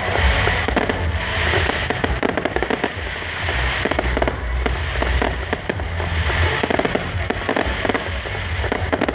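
Fireworks crackling and popping in a dense, continuous run, over a heavy low rumble.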